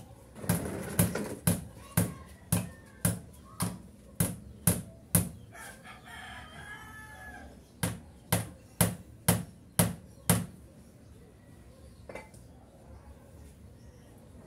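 A rooster crows once, about six seconds in. Before and after the crow come runs of sharp, evenly spaced knocks, about two a second, which stop a little after ten seconds.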